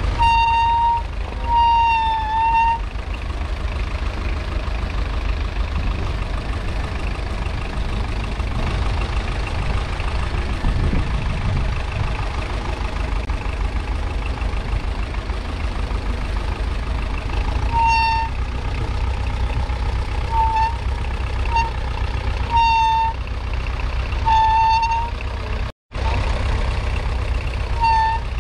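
A 1961 Massey Ferguson 35's 2.5-litre four-cylinder diesel engine runs steadily under load, pulling a two-furrow plough, as a low, even rumble. Short high-pitched tones like a squeak or toot come and go, twice near the start and several times in the last third.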